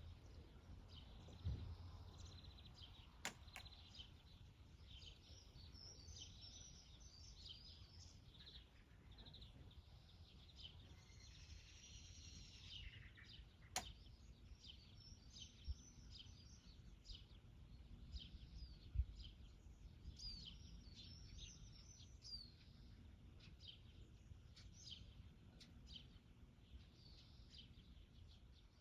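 Faint birdsong: many short chirps and calls from small birds, over a quiet outdoor background. A few soft clicks and low thumps break in here and there.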